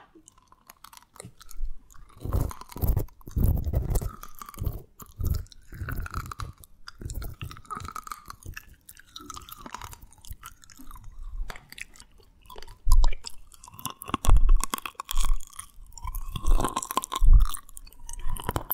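Candy being chewed and crunched close to the microphone, a dense, irregular run of crunches and mouth sounds that comes in louder bouts.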